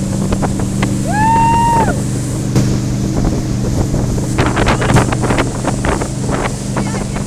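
Motorboat engine running steadily at towing speed, with wind buffeting the microphone and the churning wake hissing and splashing; a cluster of splashes and slaps comes a little past the middle.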